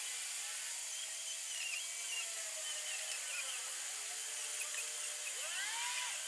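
Makita DHG181 18V cordless heat gun running, its fan blowing hot air onto tool plastic: a steady airy hiss with a thin high whine.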